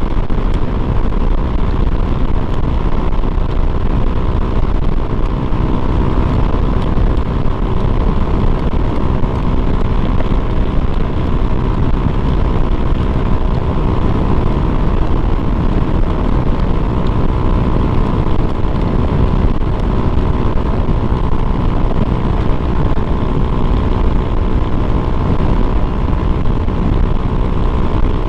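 Honda Click 125 fi scooter's single-cylinder engine, fitted with a speed-tuner CVT setup and an aftermarket pipe, running steadily near full speed at about 100 km/h, mixed with heavy wind noise on the microphone.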